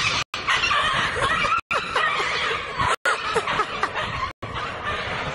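People laughing and chuckling, with voices breaking off at a few abrupt cuts where the sound drops out for an instant.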